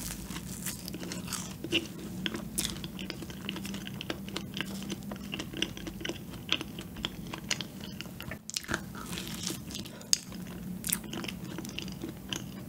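Biting into and chewing a sugar-coated, cream-filled donut up close to the microphone: a bite at the start, then many small, irregular wet mouth clicks and smacks of chewing.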